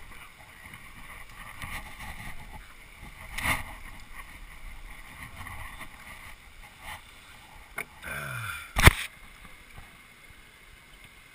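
Rustling and rubbing of a body-worn action camera against clothing and zip-line harness gear as the wearer moves about, with a loud knock about three and a half seconds in. Near the end a brief falling whine ends in a sharp, loud clack, the loudest sound here.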